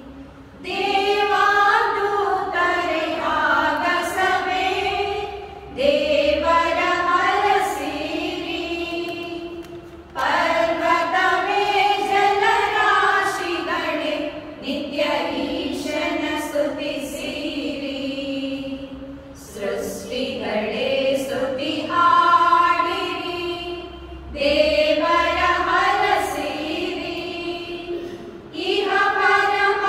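A group of women singing a prayer song together, in sung phrases of a few seconds each with short breaks for breath between them.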